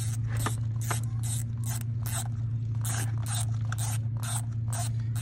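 Hand ratchet clicking in quick repeated strokes, about three a second, while turning out the retaining bolt of a camshaft (intake/exhaust) solenoid, over a steady low hum.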